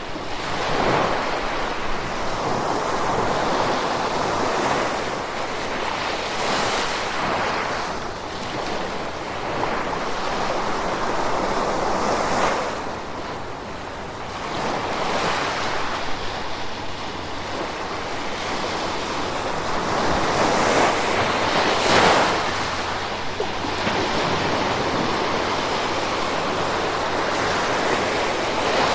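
Gentle ocean waves breaking and washing ashore, the surf swelling and fading every few seconds with brief louder surges.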